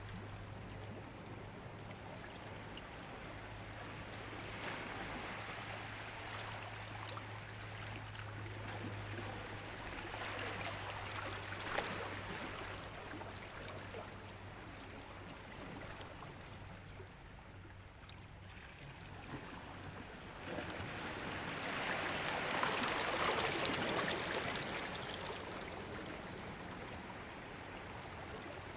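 Ocean waves washing in, a rush of water that rises and falls and swells loudest about three-quarters of the way through. A low steady hum lies under the first half and fades out.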